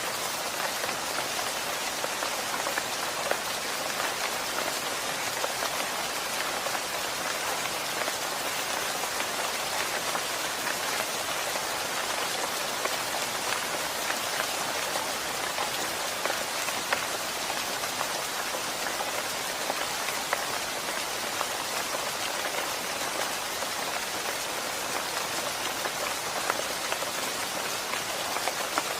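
Steady rain falling, a constant hiss with many small drops pattering on a surface.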